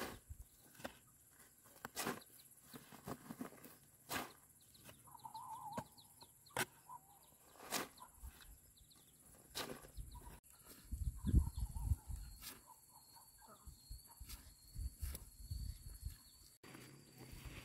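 Hand hoe chopping into loose, dry soil and scraping dirt into a woven sack, in separate strikes every one to two seconds, some with a dull thud.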